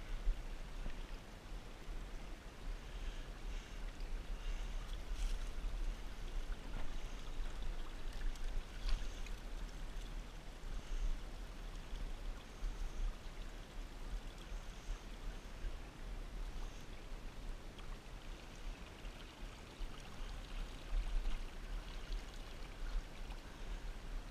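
Small shallow creek trickling, an even watery hiss under a steady low rumble, with a few faint clicks.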